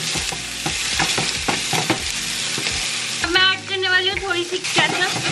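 Vegetables and tomato paste sizzling in a stainless steel sauté pan as a wooden spatula stirs and scrapes. About three seconds in, a squeezed plastic ketchup bottle gives a brief pitched sputter.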